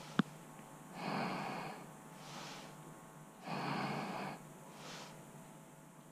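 Heavy breathing close to the microphone: louder breaths about every two and a half seconds, with fainter ones between. A single sharp click comes just after the start.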